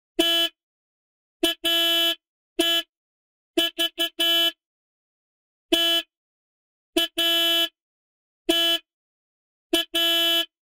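Car horn honking over and over, about a dozen toots and longer blasts on one steady note. The pattern repeats: a single toot, then a quick toot leading into a longer blast, with silence between.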